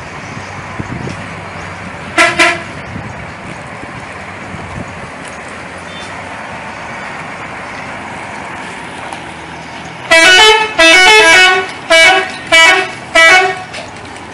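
Sedya Mulya bus's telolet multi-tone air horn: a short double toot about two seconds in, then near the end a loud melodic run of stepped-pitch notes in five or so bursts, over a steady background rumble.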